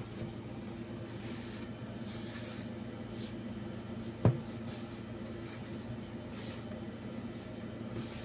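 A hand squishing and rustling through a crumbly brown-sugar piyaya filling in a plastic basin, in short scrapes every second or so over a faint steady hum. A single dull knock about four seconds in.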